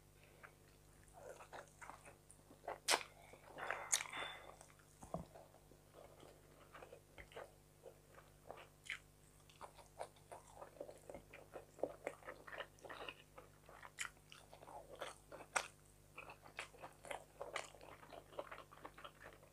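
Close-miked chewing and mouth sounds of a person eating fried fish and rice by hand: irregular small clicks and smacks several times a second, a little louder around three to four seconds in.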